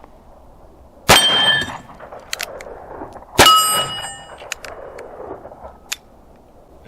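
Two sharp metallic clangs a little over two seconds apart, each ringing out for about half a second.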